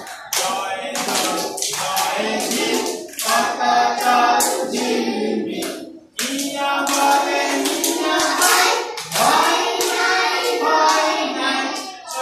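A class of young children with their teacher singing a nursery rhyme song together, clapping their hands along in a steady beat, with a short break about six seconds in.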